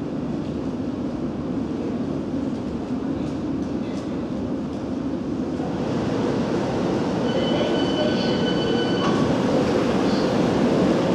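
London Underground S7 stock District line train standing at the platform with its doors open, its onboard equipment giving a steady hum that grows louder about six seconds in. A short run of broken high beeping comes in around seven to nine seconds.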